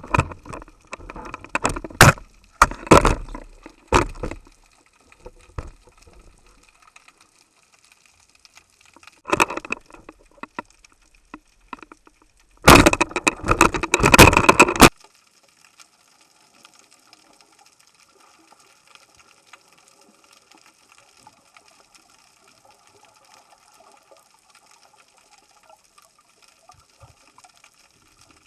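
Underwater splashing and knocking picked up by a diving camera: several short bursts early on, a loud crackling burst of about two seconds roughly halfway through, then a long stretch of faint steady hiss.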